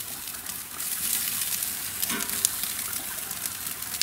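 Denver cut beef steaks sizzling as they sear over hot charcoal on a grill grate: a steady hiss with scattered crackles and pops.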